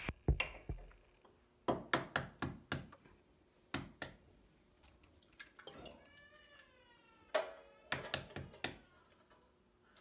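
Sharp clicks and knocks of kitchen things being handled, among them the stand mixer's head and attachment, with a cat meowing once, a single drawn-out call about six seconds in.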